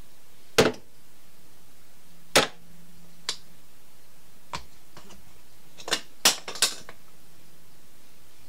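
A series of sharp knocks and clinks, about seven in all, as kitchen bowls and utensils are picked up and set down on a worktop; the loudest come a little over half a second in, at about two and a half seconds, and as a quick cluster around six seconds.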